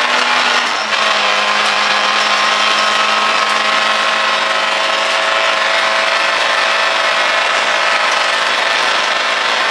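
Rally car's engine running hard at high revs on a gravel stage, heard inside the cabin, over a steady rush of road noise. About a second in the sound dips briefly and the pitch drops a little, then holds steady again.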